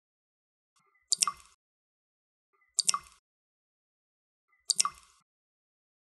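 Water dripping slowly: a single drop lands about every two seconds, three times, each a sharp double plink with a short ringing tail.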